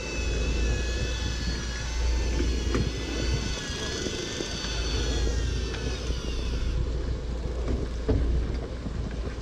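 Wind on the microphone gives a steady low rumble aboard the fishing boat. Over it runs a faint high whine from an electric fishing reel's motor winding in line, which fades out about seven seconds in.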